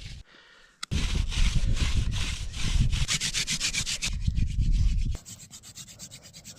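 Hand-drill friction fire: a mullein spindle spun back and forth between the palms, its tip grinding into a wooden hearth board in rasping strokes about three a second. The strokes turn quieter and faster about five seconds in.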